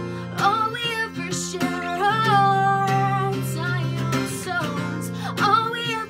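A woman singing to her own strummed acoustic guitar, holding one long note about two seconds in.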